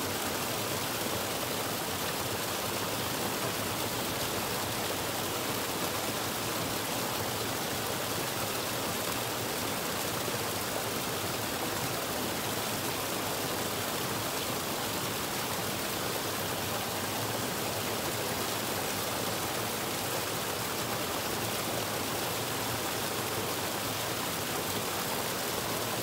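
Small stream waterfall: water pouring over rocks into a pool, a steady, unchanging splashing.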